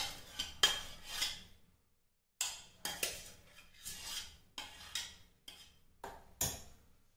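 Metal kitchen utensil scraping and clinking against a bowl in a series of short strokes, with a brief pause about two seconds in.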